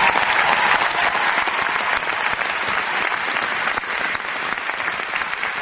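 Large arena crowd applauding: many hands clapping in a dense, even patter, loudest in the first second and easing slightly after.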